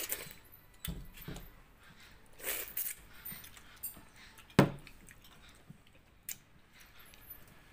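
Eating by hand from steel dishes: scattered soft clicks and squishes of rice and curry being mixed, and a sharp metallic clink about halfway through as a small steel bowl is set down on the table.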